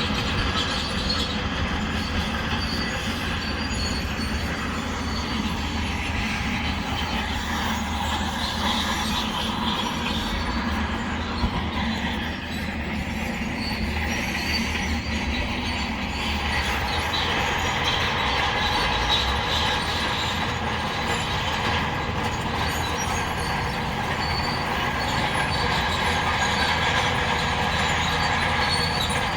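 Crawler bulldozer at work: its diesel engine runs steadily under load while its steel tracks squeal and clank.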